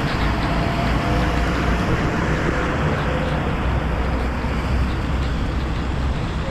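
Road traffic on a wet road in heavy rain: a steady hiss of rain and tyres on wet tarmac over a low, fluctuating rumble of wind on the microphone.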